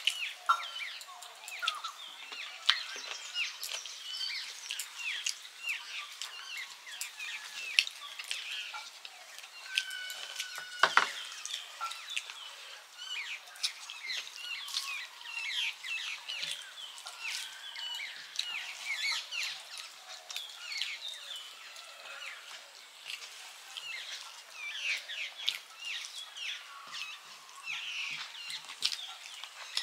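Eating sounds: many quick wet clicks and smacks of fingers squishing rice and curry on steel plates, and of lips and chewing. Small birds chirp through it.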